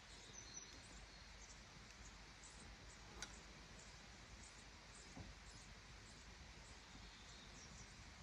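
Near silence: quiet outdoor ambience with faint high chirps throughout and two soft clicks, about three and five seconds in.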